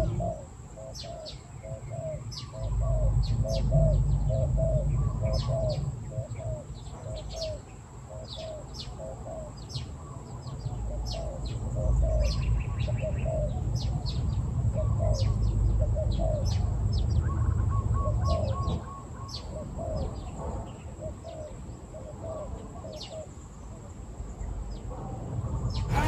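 Spotted doves cooing in runs of short, low, repeated notes, with small birds chirping high above them, over a low rumble.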